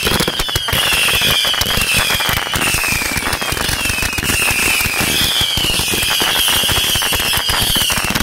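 Ground-launched consumer fireworks going off close by: a dense, continuous run of sharp cracks and pops, with a high falling whistle repeating over it about once or twice a second.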